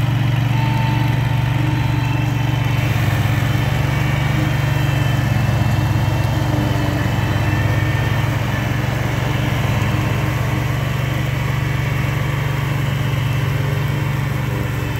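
SPIDER ILD02 remote-controlled slope mower running steadily as it cuts tall, overgrown grass, its engine holding an even drone throughout.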